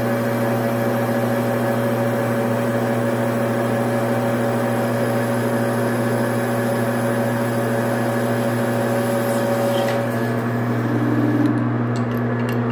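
Metal lathe running steadily while a tool turns a bar of tool steel: a motor hum with a hiss from the cut. About ten seconds in one tone of the hum stops and the hiss dies away, followed by a few light clicks near the end.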